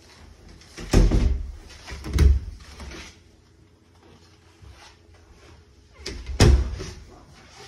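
White panelled interior door of an under-stairs cupboard opened by its lever handle, with a knock about a second in and another about two seconds in as it swings open, then a third knock about six seconds in as it is closed.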